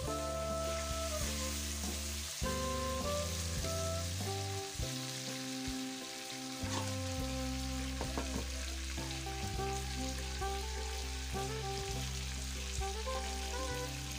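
Fish pieces sizzling as they fry in hot oil in a black iron kadai, stirred and tossed near the start. Background music with held notes plays over the frying.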